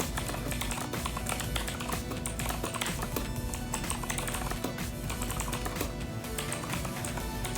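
Fast typing on a budget mechanical keyboard, a dense run of key clicks, over background music.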